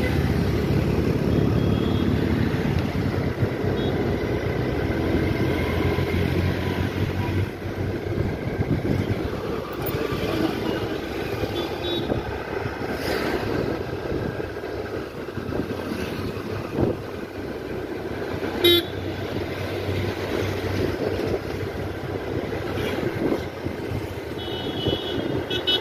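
Road traffic heard from a moving vehicle: steady engine and tyre noise, with vehicle horns tooting, one short toot near the end. A single sharp knock about two-thirds of the way through.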